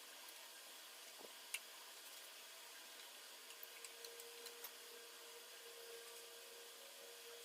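Near silence: faint room tone with a few soft, scattered ticks and a faint steady hum coming in about halfway through.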